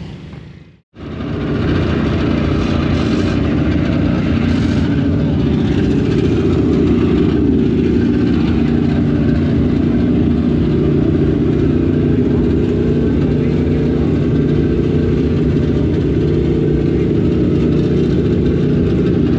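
Car engines running steadily and loudly, starting abruptly about a second in.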